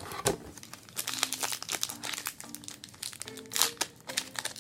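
Wrapper of a trading card pack crinkling in the hands as it is handled and opened, a quick run of crackles from about a second in.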